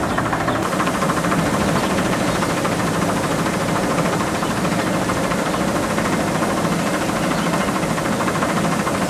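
Loud, steady mechanical running noise, like an engine or machine, with a fast fine rattle in it and no change in pitch.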